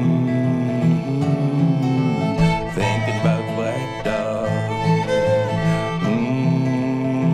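Fiddle and guitar playing an instrumental folk passage: the fiddle carries the melody in long held and sliding notes over a steady, evenly repeating guitar accompaniment.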